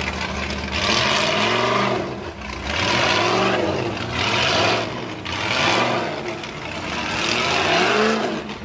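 Unlimited 4400-class rock-racing car's engine revving in repeated short throttle bursts as it crawls over boulders, the pitch rising and falling with each burst.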